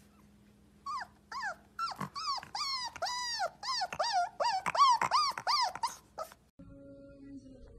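A pomsky puppy giving a quick run of about a dozen high-pitched yips and little howling cries, each call bending up and then down in pitch. The calls stop abruptly about six seconds in.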